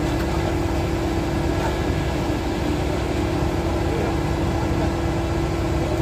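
Concrete mixer truck and line pump running steadily: a constant diesel engine drone with a steady hum.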